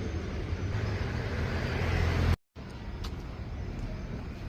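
City street ambience: steady road traffic with a low rumble that builds for about two seconds. It breaks off in a brief total drop-out about halfway through, then carries on steadily.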